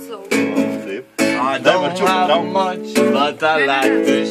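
Acoustic guitar being strummed with voices singing over it, wordless here; the playing breaks off briefly about a second in, then picks up again.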